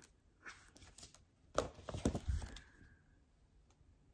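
Pages being handled in a ring binder: a few soft rustles and clicks, then a cluster of louder knocks and rustles around the middle, after which it goes quiet.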